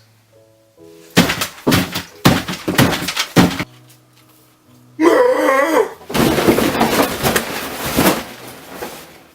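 A run of loud crashes and bangs, like things smashing and breaking. About five seconds in comes a brief wavering cry, then more dense crashing that dies away.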